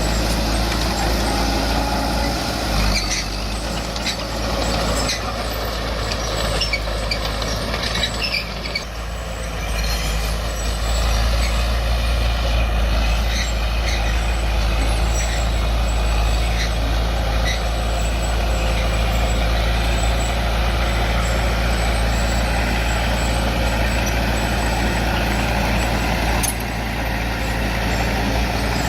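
Diesel earthmoving machinery running steadily under load, with scattered clanks and knocks in the first third.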